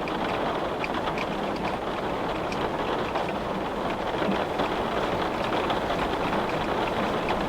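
Heavy rain falling on glass: a steady, dense hiss with individual drops ticking sharply here and there.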